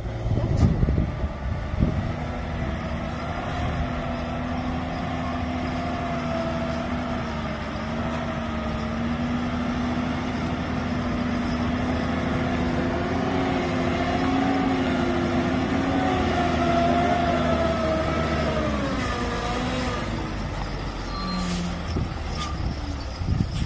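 Loaded heavy truck's diesel engine working on a rough dirt track, with a steady whining drone that wavers with engine speed, rises a little past the middle and drops near the end as the load comes off. A few sharp knocks sound in the first couple of seconds.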